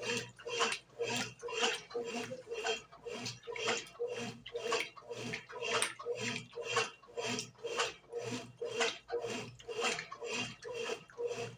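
Brastemp BWG11 11 kg washing machine agitating a load of laundry in water: a rhythmic swishing and churning, about two strokes a second.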